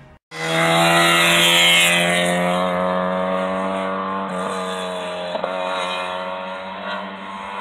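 Volkswagen Golf Mk2 rally car's engine pulling hard, its note slowly dropping and fading as the car drives away along the stage. The note changes briefly twice, around four and five and a half seconds in.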